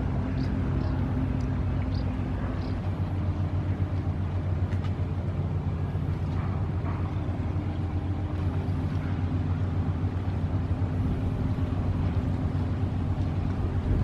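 Steady low drone of a crew boat's diesel engines as it passes under way, an even hum with no change in pace.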